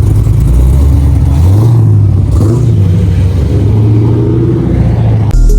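Loud car engine running low, its pitch rising and falling in a short rev about two seconds in; the sound cuts off abruptly near the end.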